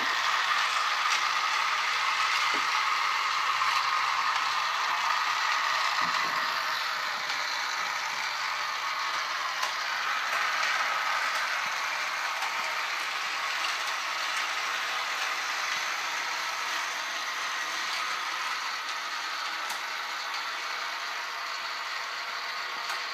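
Battery-operated toy motorcycle race track running: its small motor and plastic gearing whir and clatter steadily as the toy motorcycles circle the plastic track, getting slightly quieter toward the end.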